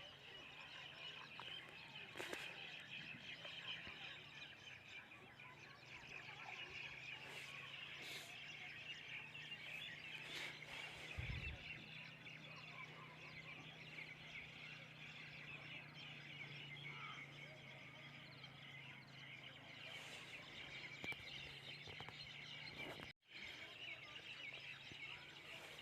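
Faint background of birds chirping steadily, over a low steady hum, with a few soft clicks.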